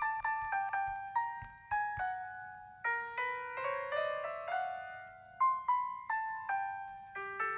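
Background piano music: single notes and short rising runs of notes, each ringing and fading.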